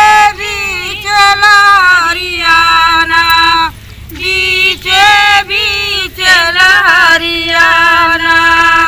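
Unaccompanied female singing of a kajari folk song: long held, wavering notes broken by short pauses for breath.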